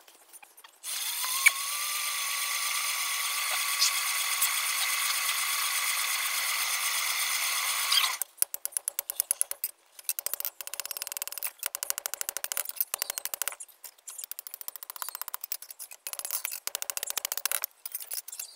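A forge blower runs steadily for about seven seconds, rising in pitch as it spins up and cutting off suddenly. Then come rapid runs of light metallic clicking and scraping as a red-hot spade blade is worked on the anvil.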